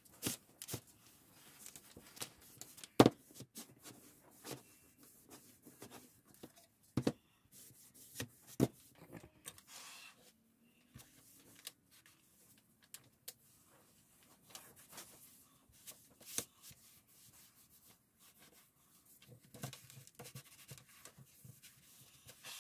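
Cloth rubbing over a hardwood cutting board as it is wiped down, with scattered sharp knocks as the board is handled on the bench, the loudest about three seconds in.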